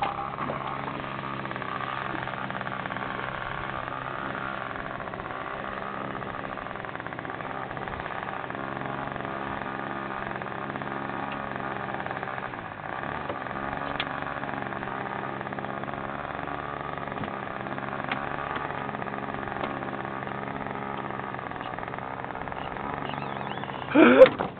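A small engine running steadily at idle, with an even hum that hardly changes; near the end a brief loud burst of sound breaks in over it.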